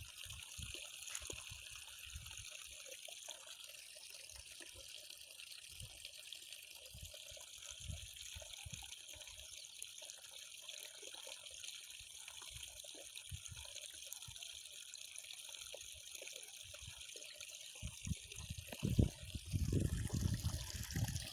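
Faint, steady trickle of running water, with scattered soft low knocks and a few louder low thumps near the end.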